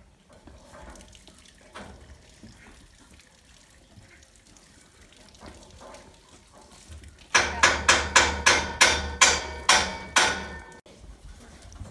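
Hammer striking metal scaffolding: a quick run of about a dozen ringing blows, about three a second, that stops abruptly. Fainter scattered knocks come before it.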